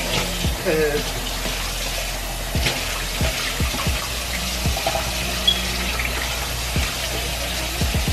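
Kitchen faucet running into a stainless steel sink while the basin is rinsed and wiped with a sponge, a steady rush of water with a few dull low knocks.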